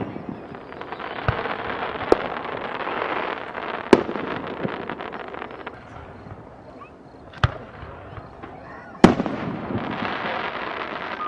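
Aerial fireworks shells bursting: five sharp booms at uneven gaps of one to three and a half seconds, the loudest a couple of seconds before the end, over a steady background din.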